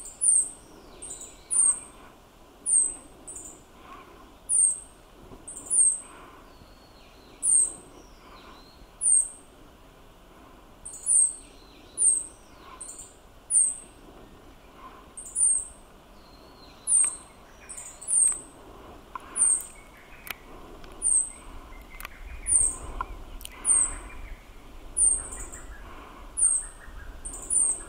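Meadow bunting giving short, very high call notes over and over, about one a second and often in quick pairs.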